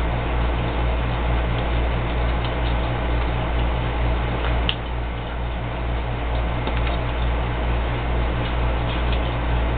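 Small aquarium air pump humming steadily as it aerates a sea monkey tank, with faint ticking and a single sharp click about halfway through.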